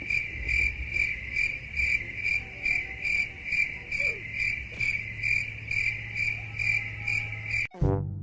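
Cricket chirping, a regular run of about three chirps a second over a low steady hum. It starts and cuts off abruptly near the end.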